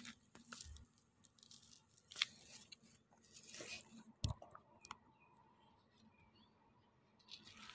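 Quiet handling noise: scattered small clicks, a brief rustle about three and a half seconds in, and a sharper knock a little after four seconds.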